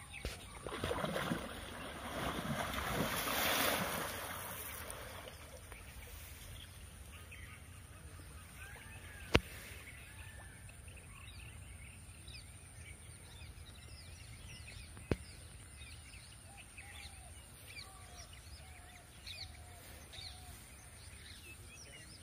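Birds chirping against low outdoor background noise. A rush of noise swells and fades over the first few seconds, and two sharp clicks come about six seconds apart.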